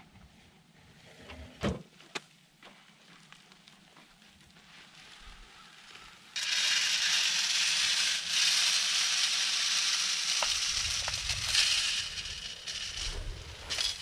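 Shelled corn poured from a sack into a hanging barrel deer feeder: a steady rushing hiss of kernels that starts suddenly about six seconds in and runs to about twelve, then thins to scattered rattles. Two sharp knocks come about two seconds in.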